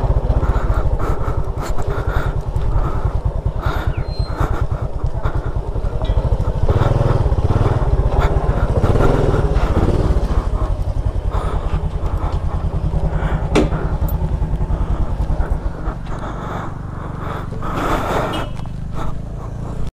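Motor scooter running over a rough dirt trail, its engine buried in a heavy low rumble of the ride and wind, easing off in the last few seconds.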